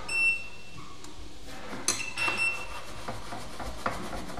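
Small metal tools clicking and clinking on a workbench during replacement of a capacitor on a circuit board. There are two short high beeps, one right at the start and one about two seconds in.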